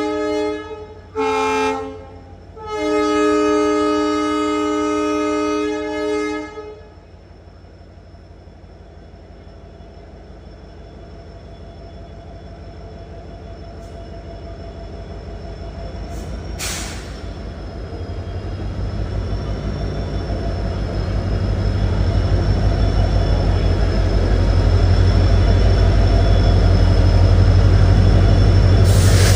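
WDP4D diesel locomotive sounding its multi-tone horn in two short blasts and then one long one. Its 16-cylinder EMD two-stroke diesel engine then throttles up to pull away, the low rumble growing steadily louder, with a steady high whine above it.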